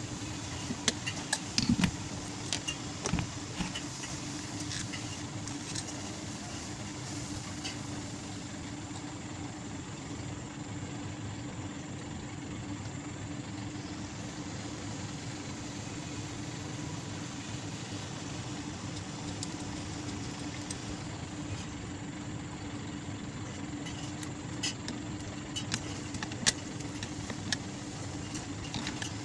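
Sharp metal clicks and taps from handling a stand fan motor's housing, screws and tools, a cluster about two seconds in and more near the end, over a steady low background hum.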